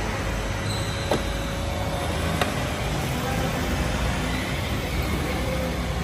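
Makita 40Vmax VC010G cordless upright vacuum cleaner running steadily as it is pushed over a concrete floor. Two sharp clicks, about a second and about two and a half seconds in.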